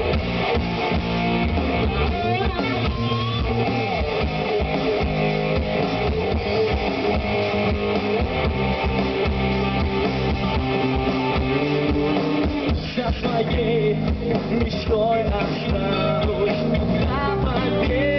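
A rock band playing live: electric guitars, bass guitar and drums in a dense, steady passage with little or no singing.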